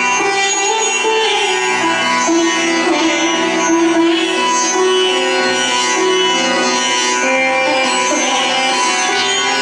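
Indian-style dance music: a plucked string melody over long held drone tones, with no sharp drum beat.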